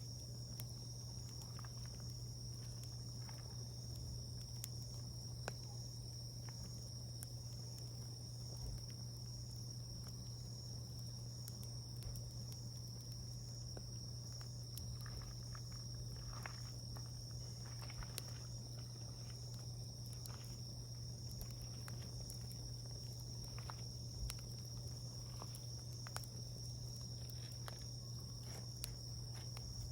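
Wood campfire crackling with scattered sharp pops and snaps, over a continuous high insect trill, likely crickets, and a steady low hum.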